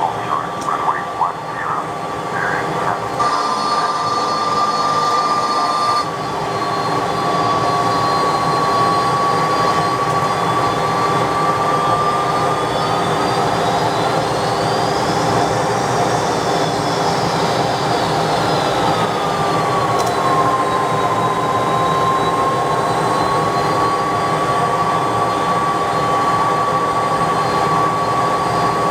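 McDonnell Douglas DC-10 jet engines running with a steady loud whine and rush. Partway through, the whine tones glide up in pitch and back down, then settle again.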